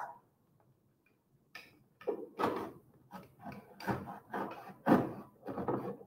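Penknife blade cutting through corrugated cardboard along a box's marked lines: a run of short scraping strokes, about two a second, starting after a second or so of near silence.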